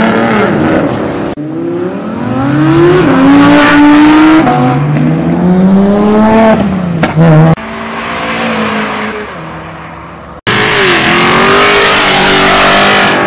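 Sports car engines revving and accelerating hard, pitch climbing and dropping back at each gear change, in several short passes that change abruptly from one car to the next.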